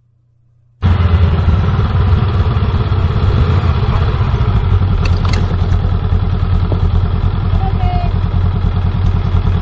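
Motorcycle engine running at low speed with steady wind noise on the rider's onboard camera, cutting in about a second in. A short clatter about five seconds in, as a learner's motorcycle tips over at low speed onto the uneven road edge.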